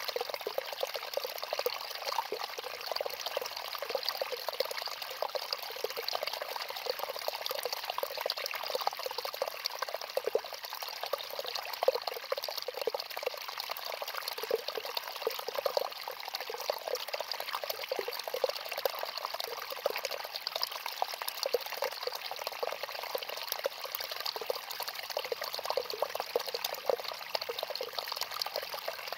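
Steady trickling, running-water sound, an even hiss with fine crackle that does not change.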